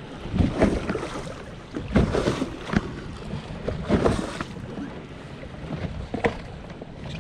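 Choppy water slapping irregularly against a fishing boat's hull, with wind gusting across the microphone.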